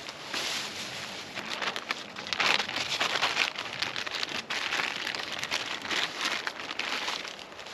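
Bannock dough patty frying, a steady crackling sizzle with many small pops.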